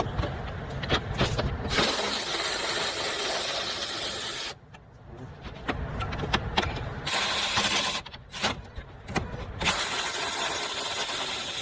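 Power tool running in three bursts of a few seconds each, a dense hissing whirr, loosening the bolts that hold a pickup's rear bumper.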